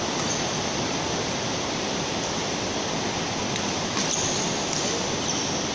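A steady, even rushing hiss, with a couple of sharp taps of a badminton racket hitting the shuttlecock about four seconds in.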